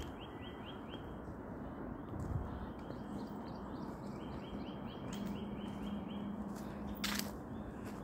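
A songbird singing a quick series of short repeated chirps, about five or six a second, heard twice. A low steady hum comes in about halfway through, and a sharp click sounds near the end.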